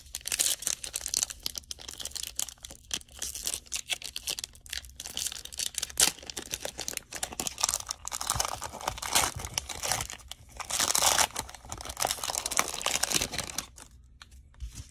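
Cellophane wrapper of a Panini Prizm basketball cello pack being torn open and crinkled by hand: a long run of irregular crackling rips, loudest a little past the middle, stopping shortly before the end.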